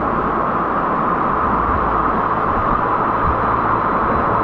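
Steady rush of fast whitewater pouring over rocks around a packraft, heard close up.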